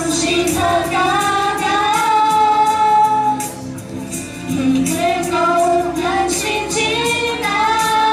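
Group of young women singing into microphones over recorded accompaniment with a steady beat, with a short break between phrases about three and a half seconds in.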